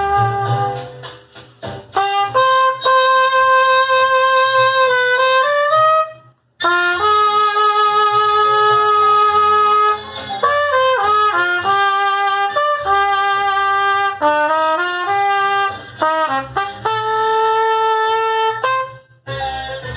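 Silver-plated trumpet playing a slow solo melody: long held notes joined by short quick runs, with a brief break about six and a half seconds in.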